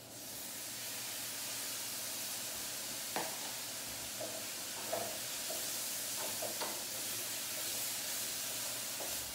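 Stock poured into a hot frying pan, bursting into a loud, steady sizzle as it hits. A few light knocks from the stirring utensil against the pan come now and then.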